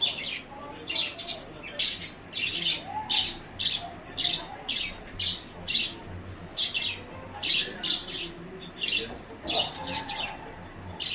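Birds chirping: short, sharp calls repeated about twice a second.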